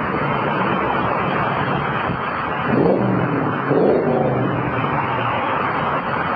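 Steady road noise of highway traffic moving on wet, icy pavement. A little under halfway through, a brief wavering pitched sound rises over the noise for about two seconds.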